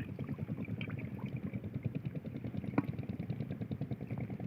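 A small engine running steadily with a fast, even pulsing, and one sharp click near the end.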